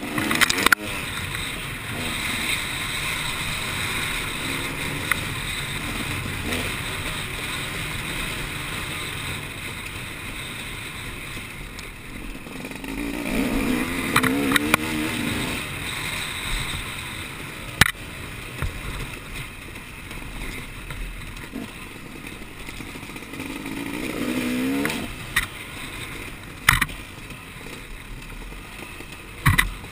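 Off-road race vehicle engine running steadily, its pitch rising and falling with the throttle twice, with a few sharp knocks.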